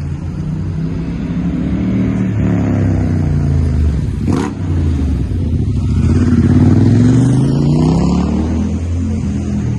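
City street traffic: motor vehicles passing close by, one engine falling in pitch as it goes past, then another rising in pitch as it speeds up and grows loudest near the end. A short sharp click comes about four seconds in.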